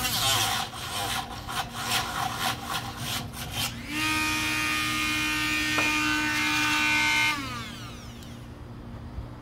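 Small corded power tool sanding fiberglass-reinforced body filler in uneven, scraping strokes. From about four seconds in it runs free with a steady whine, then is switched off and winds down after about seven seconds.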